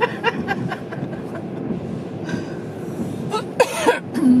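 A person laughing in quick short bursts at the start, then a louder cough-like burst about three and a half seconds in, over a steady background noise.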